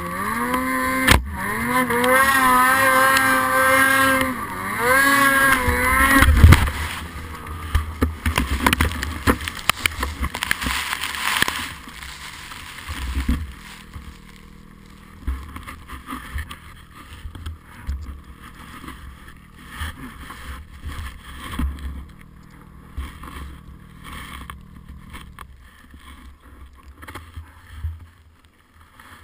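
Snowmobile engine revving high, its pitch rising and falling, then a crash about six seconds in: a run of loud knocks and thumps through branches and snow. The engine then drops to a low idle and cuts out near the end.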